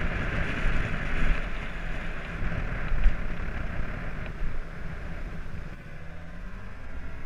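Wind buffeting the microphone of a helmet-mounted camera on a moving bike: a steady low rumble with a hiss that fades about five seconds in. There is one louder bump about three seconds in.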